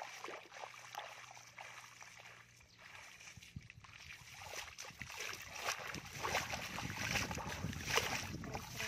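Bare feet stepping and stamping through shallow muddy water, throwing up irregular splashes that come thicker and louder in the second half, with wind rumbling on the microphone.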